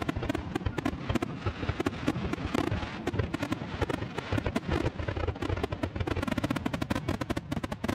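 Fireworks going off with a dense, continuous crackle: many rapid sharp cracks over a low rumble of bursts.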